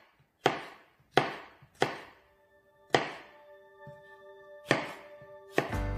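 Chef's knife chopping a red bell pepper on a plastic cutting board: five sharp knocks of the blade on the board, unevenly spaced, each dying away quickly. Faint background music with held notes lies under them, and louder music comes in near the end.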